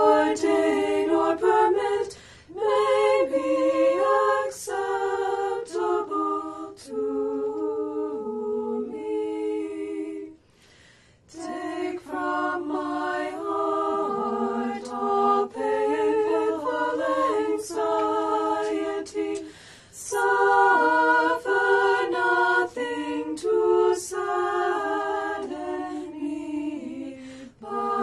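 Women's voices singing a slow hymn a cappella in harmony, held notes with vibrato in phrases split by short breaths, with one longer pause about ten seconds in.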